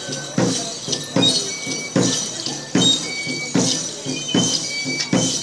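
Procession music: a drum struck in a steady beat a little faster than once a second, with short high flute notes held between the strokes.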